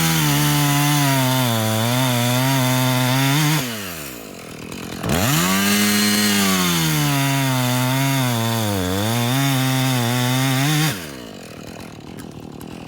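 Husqvarna 450 Rancher two-stroke chainsaw at full throttle cutting wood, its pitch dropping and recovering as the chain bites. It falls back to idle about three and a half seconds in, revs up again for a second cut about five seconds in, and drops to idle near the end.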